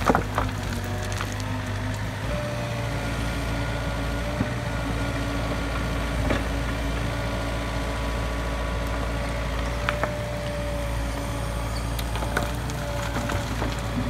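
Mini excavator's diesel engine running steadily, with its hydraulic whine and a few sharp knocks scattered through.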